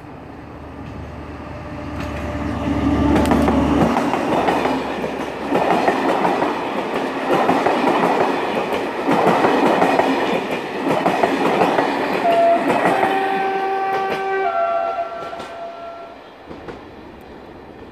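Locomotive-hauled Intercités train of Corail coaches passing close by: a low drone for the first few seconds, then loud wheel rumble and clatter from the coaches that fades near the end. About twelve seconds in, a horn of several notes is held for about three seconds over the rumble.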